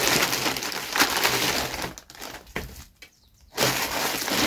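Parcel packaging crinkling and crackling as it is torn open by hand, stopping briefly for about a second past the middle before starting again.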